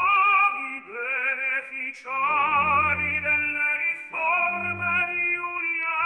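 Baroque-style opera: a solo voice singing with a wide vibrato in phrases of a second or two, over sustained low orchestral accompaniment.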